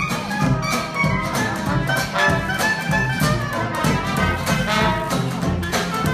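A traditional New Orleans–style jazz band playing live, trumpet and trombone lines over banjo, guitar and sousaphone keeping a steady swing beat.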